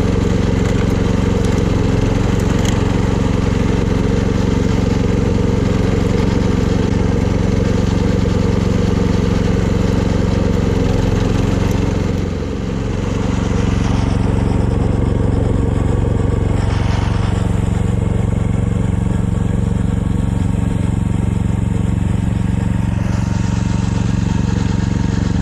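Kyoritsu Wing Mower AZ646 walk-behind levee mower's engine running steadily while mowing grass. About halfway through, the engine note dips briefly and then recovers.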